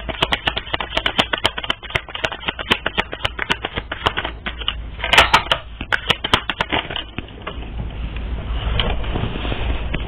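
Deck of tarot cards being shuffled: a rapid, irregular run of sharp card clicks and snaps with a louder cluster about five seconds in, giving way to a softer, steady rustling over the last few seconds.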